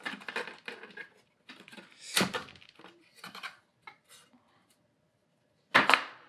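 A hard plastic-and-metal LiDAR housing cover being lifted off and handled: scattered clicks, scrapes and light knocks, then a sharp knock near the end as it is set down on a wooden board.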